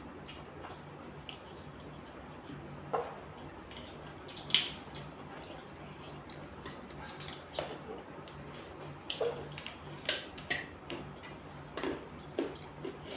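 Close-up eating sounds of two people eating rice and curry by hand: irregular short wet mouth smacks and chewing, about one every second, with fingers mixing rice on steel plates.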